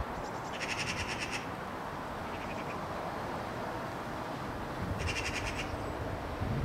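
An animal's harsh, rapid rattling call, about a dozen pulses a second, heard twice about four seconds apart with a faint short burst between, over steady outdoor background hiss.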